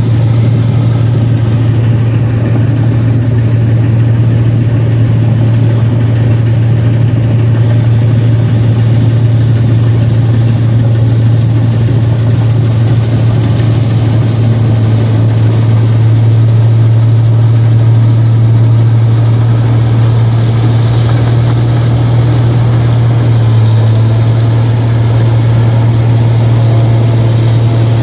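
Rice combine harvester's engine running loudly and steadily through its 'power' exhaust, with a constant low drone.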